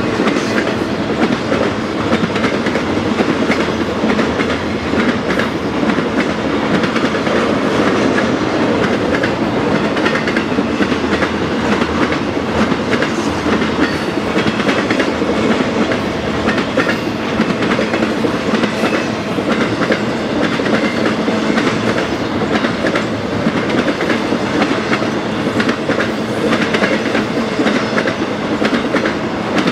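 BNSF intermodal freight train of truck trailers on flatcars rolling past at a steady speed: a continuous noise of steel wheels on rail with a run of clicks as the wheels cross rail joints.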